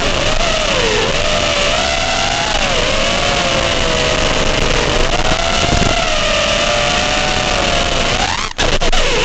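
FPV racing quadcopter's brushless motors whining, the pitch rising and falling as the throttle is worked, over a steady hiss. Near the end the whine dips, then climbs sharply in a throttle punch, with a brief dropout and a few clicks.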